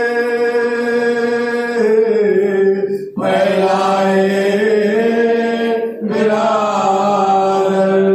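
Men chanting a Muharram noha (a mourning lament) in unison, with no instruments. The lines are long and drawn out, with short breaks for breath about three and six seconds in.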